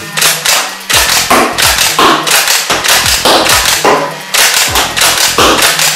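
Unmodified motorised Nerf Elite flywheel blaster firing foam darts in quick succession, about two or three sharp shots a second, over the steady hum of its flywheel motors on stock 4.5 V battery power.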